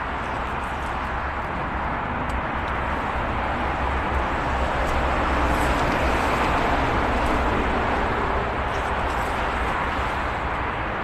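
Steady roar of traffic on a nearby highway, swelling a little in the middle as vehicles pass.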